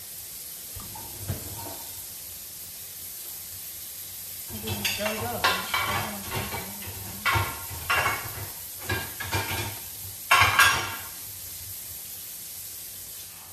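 Smashed burger patties sizzling steadily in hot grease in a frying pan. Between about 4 and 11 seconds in, a spatula scrapes and knocks against the pan several times as a patty is flipped, the loudest stroke near the end of that stretch.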